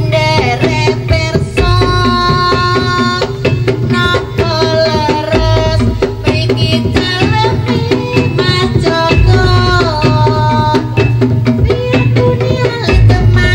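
Jaranan accompaniment music: hand drums beating quickly under a sustained melody line that steps from note to note, over a recurring low pulse.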